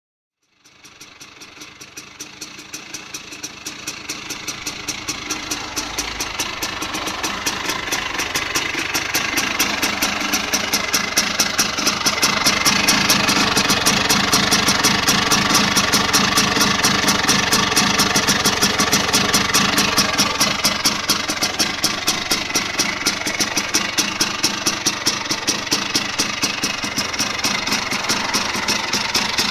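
Vespa 90 two-stroke single with a Polini 133 cylinder kit and Polini Banana expansion exhaust, running on its first start after the build. The sound fades in over the first few seconds, then the engine runs steadily with an even, rapid firing rhythm.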